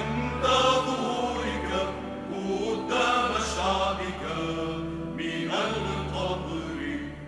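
Large mixed choir singing a hymn in long held chords over a steady low organ bass; the sound drops away near the end.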